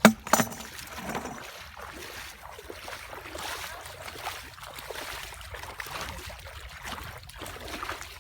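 Water sloshing and splashing from wading and handling the net in shallow water, with two sharp knocks at the very start.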